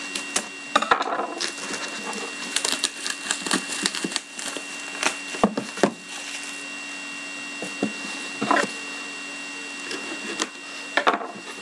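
Plastic shrink wrap crackling and crinkling as fingers pick at it and peel it off a sealed box of trading cards, in irregular bursts of crackles and clicks, busiest in the first half. A faint steady hum runs underneath.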